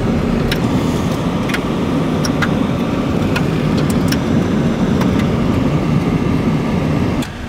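Car driving on a country road, heard from inside the cabin: a steady rumble of tyre and wind noise with scattered small ticks. The noise drops suddenly shortly before the end.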